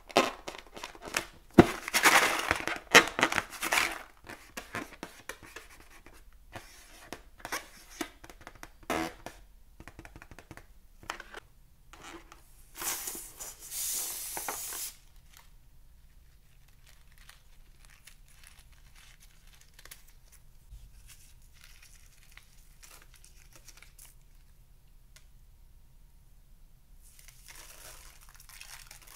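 Hands squeezing and rubbing a filled rubber balloon: loud rubbery squeaks and crinkles for a couple of seconds, then scattered light clicks and taps. About halfway, scissors cut into the balloon with a harsh rasp lasting about two seconds; near the end, faint squishing of fluffy slime mixed with foam beads.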